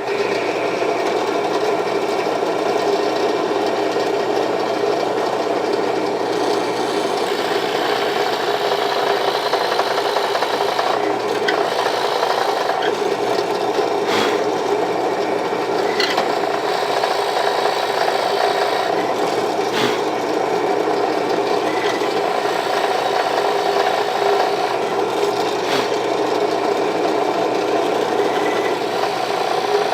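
Power drill with a centre-point bit boring a hole into a wooden sword handle: the motor runs steadily while the bit cuts the wood, with a few sharp clicks along the way.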